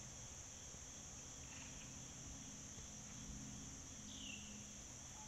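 Insects trilling in a steady, high-pitched chorus, with a short falling chirp about four seconds in.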